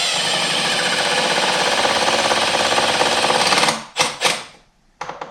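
Cordless impact driver hammering a screw in to fasten a door latch bracket: one steady run of rapid impacts for nearly four seconds, then a couple of short bursts to seat the screw.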